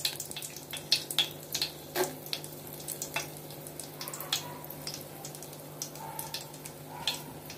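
Whole dried red chillies frying in hot mustard oil in a large metal pot: a light sizzle with scattered crackles and pops.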